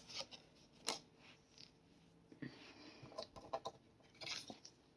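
Tarot cards being handled: faint scattered clicks and rustles of card stock, as the next card is drawn and laid out.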